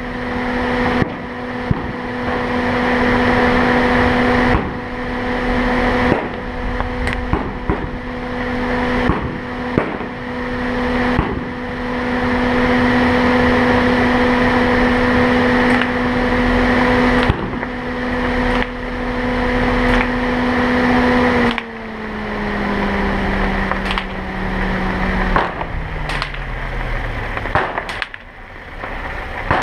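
A car's engine and road noise heard while driving at a steady speed, a constant hum. About two-thirds of the way through the vehicle slows, and the hum drops in pitch in steps and fades. Sharp knocks or pops sound every second or two throughout.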